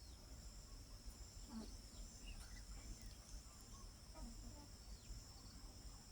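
Faint, scattered chirping of birds and chicks over a steady high-pitched insect drone.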